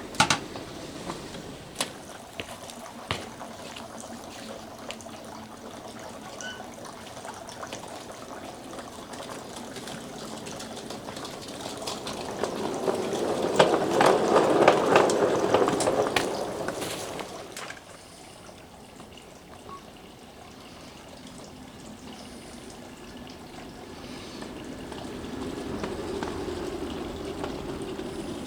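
Small 5-inch gauge work train rolling along its track with a steady rushing noise. A few sharp clicks come in the first seconds. The rush swells loud for several seconds about halfway through, then dies back.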